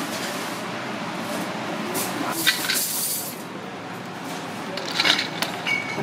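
Busy kitchen background noise: a steady hiss with a few sharp clinks and taps and some background chatter.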